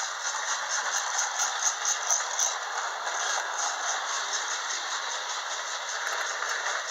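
Original Lionel mechanical 'Sound of Steam' tender running on track: its rubber-tired wheel turns with BBs rolling inside, giving a steady rattling chuff at about five pulses a second, the pre-electronic imitation of steam exhaust. The toy locomotive and cars run along the rails with it.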